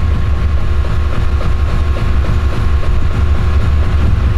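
Subaru WRX STI's turbocharged flat-four idling steadily with its fuel pump fuse pulled, burning off the last of the fuel pressure just before it stalls.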